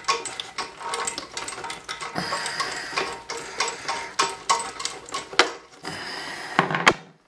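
Rapid, irregular metallic clicking and scraping from hand tools working loose the nut on a toilet's tank-to-bowl bolt. It stops abruptly near the end.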